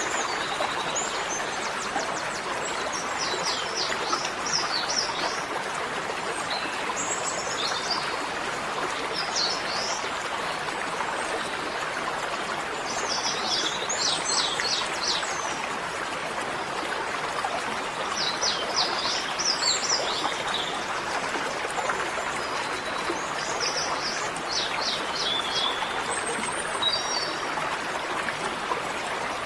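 Steady rushing of flowing water, with small birds chirping short trills of quick repeated notes every few seconds.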